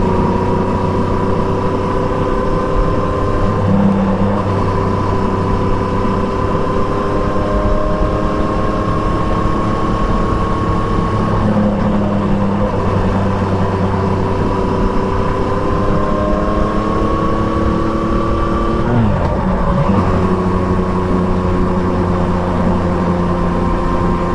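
Triumph Trident 660's three-cylinder engine, fitted with an Akrapovic exhaust, pulling steadily on the move, its pitch rising slowly as the bike gains speed. The pitch breaks and drops about eleven seconds in and again more sharply about nineteen seconds in, as gears are changed, then it runs on steady.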